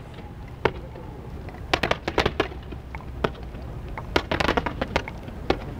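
Fireworks going off: rapid crackling bangs in two clusters, about two seconds in and again about four and a half seconds in, over a steady low rumble.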